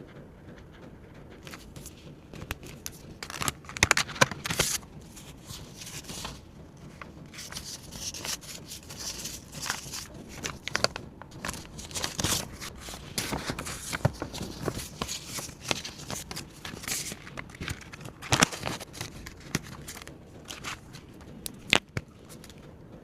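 Paper and banknotes being handled: irregular rustling, crinkling and light tapping, with louder crackles about four seconds in and again near the end.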